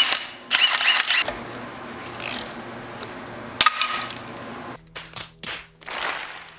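A cordless impact wrench hammers in two short bursts on the pressure screw of an underdrive pulley remover fitted to an LS engine's crank pulley. Then come a sharp metallic clank and a few knocks as the remover is handled, and a steady low hum near the end.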